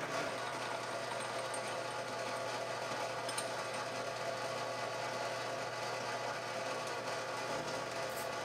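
A workshop machine's electric motor running steadily with an even hum.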